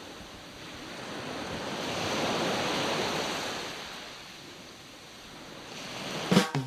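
A hissing wash of noise, like surf, that swells for about three seconds and then fades, in a gap in guitar music. A few sharp hits sound near the end, just before the music comes back in.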